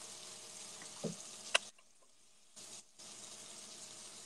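Steaks searing in hot frying pans, a steady sizzle. A short click comes about one and a half seconds in, and the sound then cuts out for about a second before the sizzle returns.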